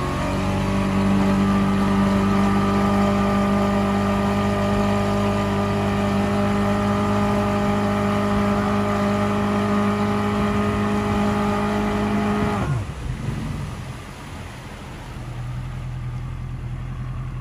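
115-horsepower outboard motor running hard at a steady pitch, with the wake rushing, while towing the dinghy at full speed. About 12 to 13 seconds in it is throttled back, its pitch dropping quickly, and it settles to a lower, quieter running tone.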